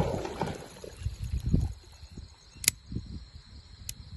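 Two short, sharp metallic clicks a little over a second apart from a .30 bore pistol, with low handling rumble; no shot goes off, and the round has not chambered.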